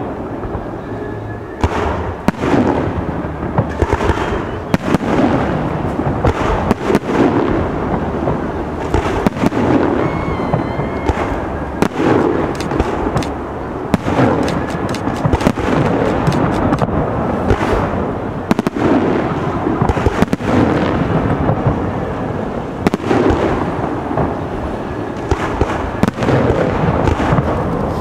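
Aerial firework shells bursting in a near-continuous barrage of bangs and booms, one after another.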